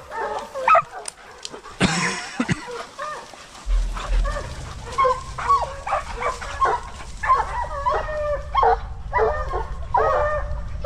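Hunting dogs giving voice in rapid, repeated high yelps and barks, the hounds baying on a chase during a wild boar hunt. A brief rustling burst comes about two seconds in, and a low rumble on the microphone sets in from about four seconds.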